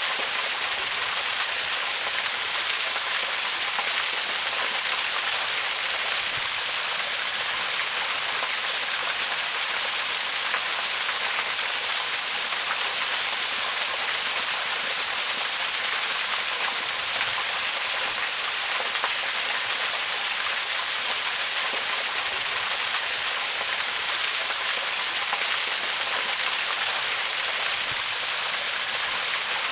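Waterfall: a steady, even rush of falling water, mostly a high hiss with little low rumble.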